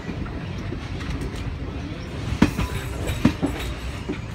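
Railway passenger coach rolling slowly over station track, heard from its doorway: a steady wheel rumble with a few sharp clunks as the wheels cross rail joints, the two loudest about a second apart in the second half.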